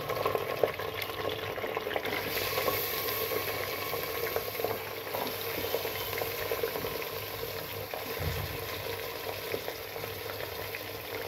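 Raw mutton pieces sizzling as they fry in hot oil with fried onions in an aluminium pressure cooker: a steady hiss with many small pops of spitting oil.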